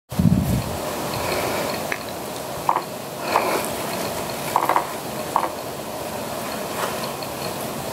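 Steady outdoor hiss with a low bump at the very start, and a handful of short, faint scrapes and clicks scattered through it as two banded Gila monsters wrestle on sandstone.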